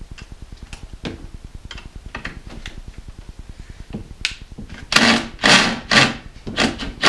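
Hand socket ratchet being worked in short strokes on a tight bolt at the back of a Ford 4.6 V8. A few light ticks come first, then from about two-thirds of the way in about five loud rasping bursts of ratchet clicks, roughly half a second apart.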